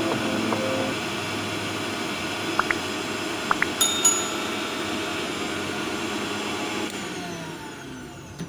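Electric mixer grinder motor running at speed with a steady whine and a few sharp clicks about halfway through, then switched off about seven seconds in and winding down with a falling whine.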